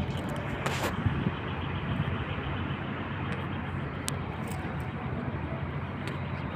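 Boat's engine running with a steady low hum under a constant noisy rush.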